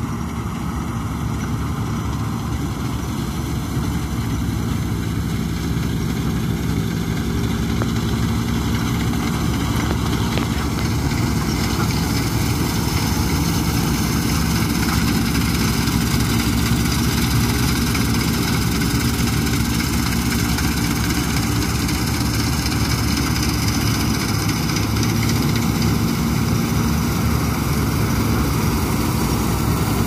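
Combine harvester running steadily while cutting wheat, growing a little louder over the first ten seconds or so.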